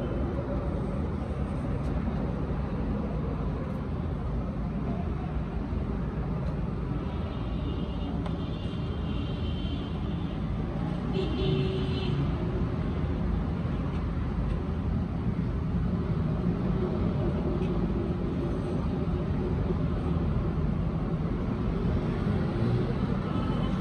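Steady low rumble of road traffic and vehicle engines, with faint voices now and then.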